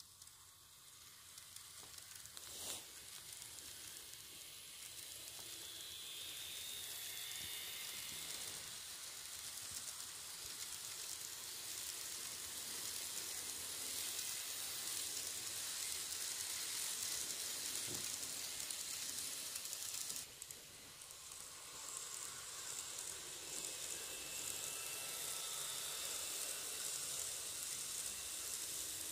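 N-gauge model train (651 series coupled to an E353) running along its track: a steady, faint hissing rattle of small wheels and motor, growing louder over the first dozen seconds, with a single tick about three seconds in and a brief dip about twenty seconds in.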